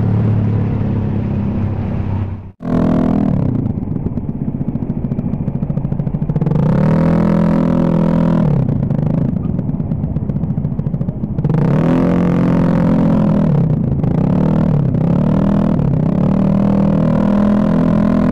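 Honda Scoopy 110 scooter's single-cylinder engine running while riding, its pitch rising and falling with the throttle several times. The sound drops out briefly about two and a half seconds in.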